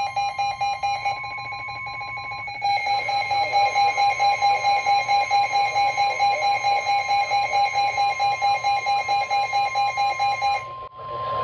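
Weather radio warning alarm: a steady high tone held throughout, the NOAA Weather Radio 1050 Hz warning alert tone that comes before a warning message. Over it a receiver's alarm beeps rapidly, about four times a second. The beeping stops near the end with a brief drop-out.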